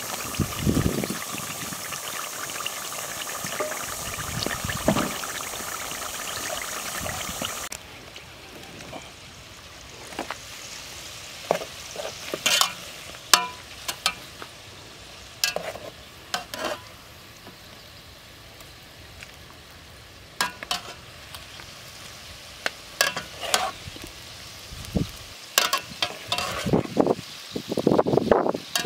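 Pig intestine deep-frying in a pot of hot oil, a dense sizzle that drops to a quieter level about eight seconds in. Through the rest, long chopsticks click sharply against the pot as the fried pieces are lifted out.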